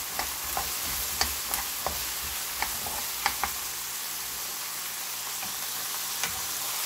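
Dried shrimp, garlic scapes and walnuts sizzling in oil in a nonstick frying pan as they are stir-fried with a spatula: a steady frying hiss with sharp clicks and scrapes of the spatula against the pan, most of them in the first three and a half seconds.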